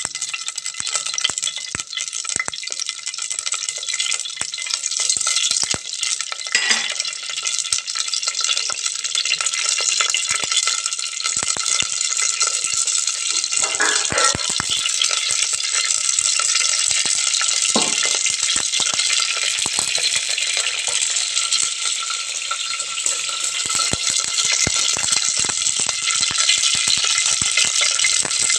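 Mustard seeds crackling and popping in hot oil in a clay pot: a dense, steady crackle of tiny pops, the tempering of spices for the dish.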